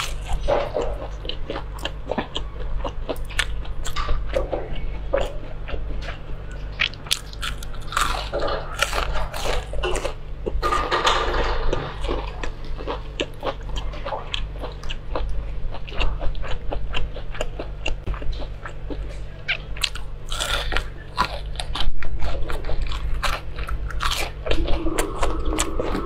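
Close-miked chewing of breaded, deep-fried food, with many sharp, irregular crunches as the crisp coating breaks between the teeth.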